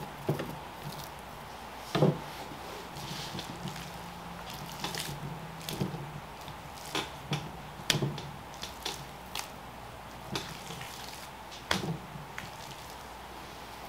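Raw beef cuts being handled on a plastic cutting board: scattered soft wet slaps and knocks as pieces are picked up and set down, the louder ones about two seconds in, near the middle and near the end, over a faint low hum.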